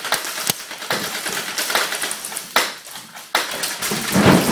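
Irregular sharp clicks over a light, rattling clatter: about half a dozen louder clicks spread unevenly across a few seconds.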